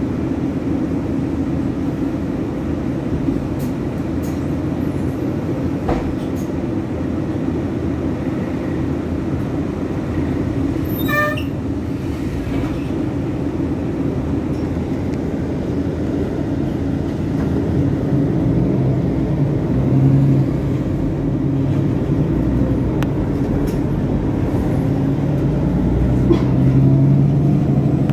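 City bus engine and interior noise heard from inside the bus: a steady low hum while the bus stands at a stop, a short electronic beep about eleven seconds in, then the engine working harder and louder as the bus pulls away near the end.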